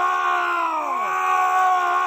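A man screaming, a long cry held at a high steady pitch, with one strand sliding down in pitch about halfway through as the scream overlaps itself.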